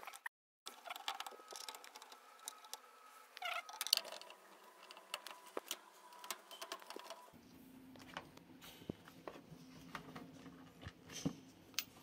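Faint clicks and taps of a screwdriver and plastic parts as screws are backed out of a washing machine's control board housing and the board is handled, with a brief squeak about three and a half seconds in.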